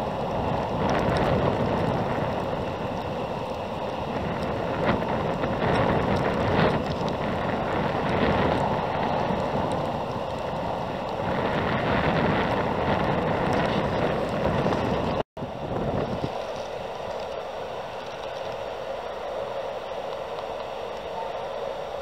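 Strong gusty wind buffeting the microphone: a rushing rumble that swells and eases with each gust. About fifteen seconds in it breaks off for an instant and comes back lighter and steadier.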